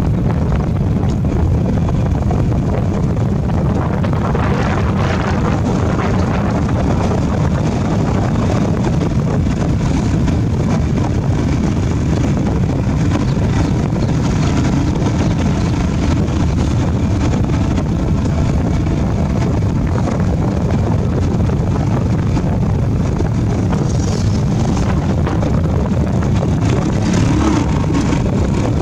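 Steady rumble of wind buffeting the microphone on a moving motorbike, with the motorbike engines running at a steady cruise beneath it.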